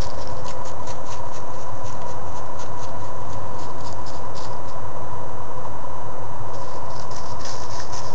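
Steady electronic whine and hiss from a night-vision camera's own microphone, with irregular faint high ticks scattered through it, thicker near the end.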